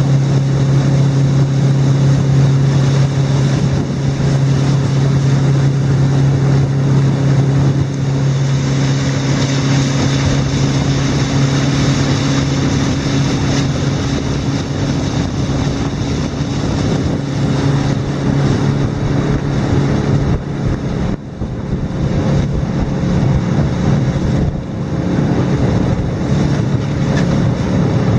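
Outboard motor running at a steady cruising speed on a small boat underway, its constant hum mixed with the rush of water and wind past the hull.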